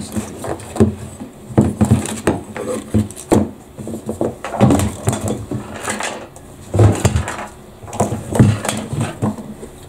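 Irregular knocks, clunks and rattles as a removed plastic fuel tank from a BMW R 1100 RT and its fuel pump assembly are handled, shifted on a rubber mat and turned over.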